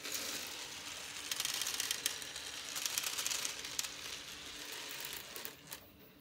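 Steel balls of a rolling ball clock rolling and clattering along its black plastic rails as a row of balls empties: a busy rattle of many small clicks that stops about half a second before the end.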